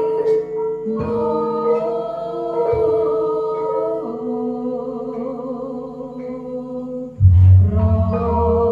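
Javanese gamelan ensemble playing in pelog tuning, with metallophones and drums under a female singer's sung line. About seven seconds in, a loud, deep, pulsing boom enters beneath the ensemble.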